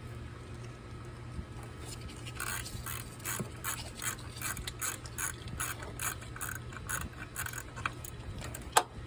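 Ratchet wrench clicking as a bolt is turned: an even run of about three clicks a second for some five seconds. One single louder clank near the end.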